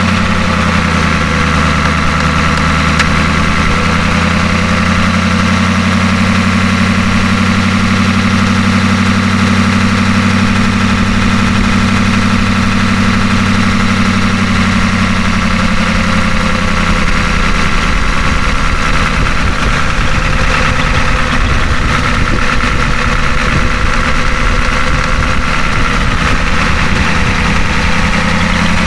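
Ford 6.9 L IDI V8 diesel idling steadily just after starting, on a freshly replaced and bled injection pump. Its low note changes a little partway through.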